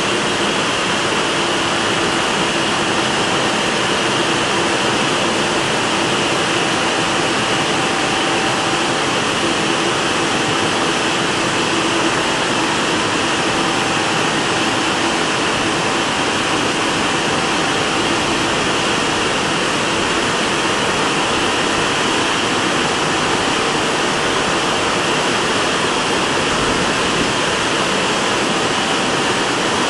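Washtec gantry car wash working over a car, making a steady loud rushing noise with a faint machine hum beneath it.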